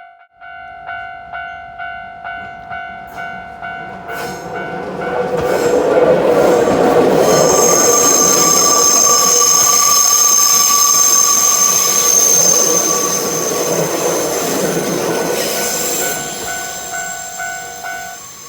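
Level-crossing warning bell dinging rapidly, about two and a half strokes a second, as a Nankai Koya Line train approaches. The train then passes loud and close, its wheels squealing high and steady on the line for several seconds. The bell is heard again as the train goes by and cuts off just before the end.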